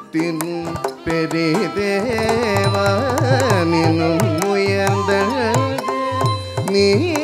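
Carnatic music: a voice gliding through ornamented notes over melodic accompaniment, with mridangam drum strokes.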